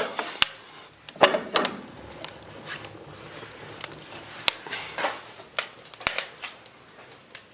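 Cast-iron stove fittings being worked by hand: a scattered series of sharp metal clicks and knocks, with a brief scrape a little over a second in, as the stove's direct-draft damper and fireplace doors are opened.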